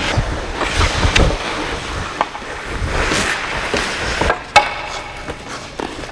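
Ice-rink action: skate blades and a metal folding chair scraping over the ice, with a few sharp knocks.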